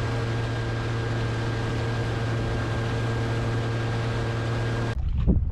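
A boat motor running at a steady speed: an even hum with a faint steady whine above it, cutting off abruptly near the end.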